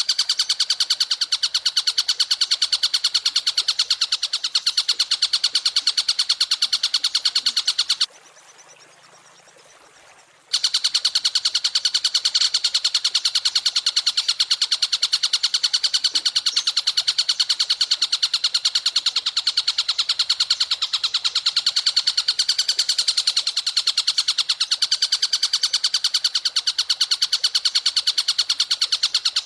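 Songbird masteran recording: a fast, even trill of rapid high notes repeated without a break, stopping for about two seconds some eight seconds in before starting again.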